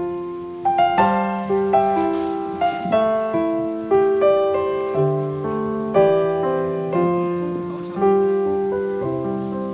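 Background piano music: notes and chords struck every half second to a second, each fading away before the next.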